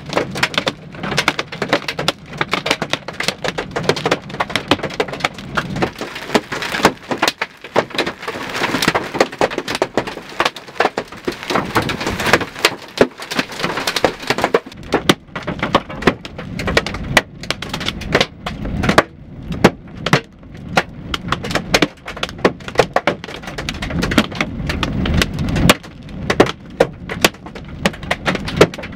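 Hail and rain pelting down on a car, a dense, irregular clatter of sharp hailstone impacts over a steady hiss, with some hits much louder than the rest.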